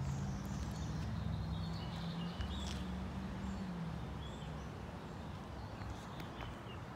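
Outdoor ambience: a steady low rumble with shifting tones, faint high chirps in the first half, and scattered light clicks.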